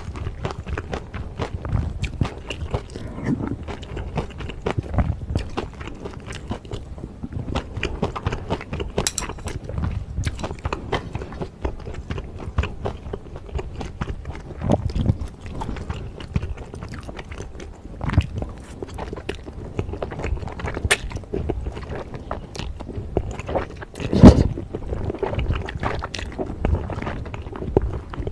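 Close-miked eating of a beef bulgogi stew with bean sprouts and wide glass noodles: a steady run of chewing, slurping of noodles and small clicks of utensils against the pan. One louder sound stands out near the end.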